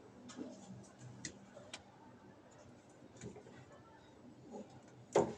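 Light, scattered clicks and taps of hands working on the wiring and parts, with a single louder, sharp click near the end.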